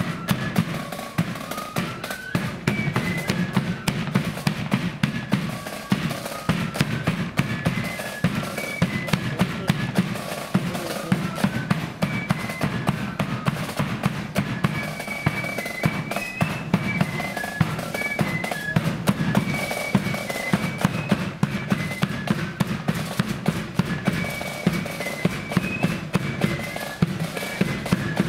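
Marching flute band playing a march tune: the flutes carry a high melody over a steady beat of bass drum and side drums.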